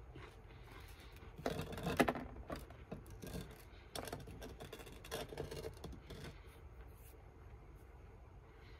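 Soft eating sounds: a spoon scraping and clicking against a ceramic plate, with a few sharper clicks in the first half and only faint handling noise later.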